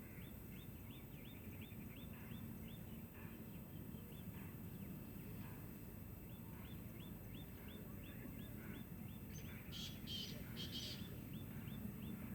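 A bird giving a long run of short, high chirps, about three or four a second, with a few harsher, louder calls about ten seconds in, over a low rumble of background noise.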